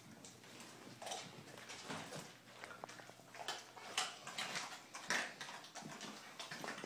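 American Staffordshire Terrier chewing on a whole raw chicken: irregular wet chewing with crunches and clicks, the sharpest about four seconds in and again about five seconds in.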